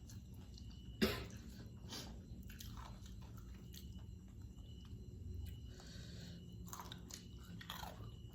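A person biting and chewing crispy fried chicken close to the microphone, with irregular crunches and mouth sounds; the sharpest, loudest crunch comes about a second in.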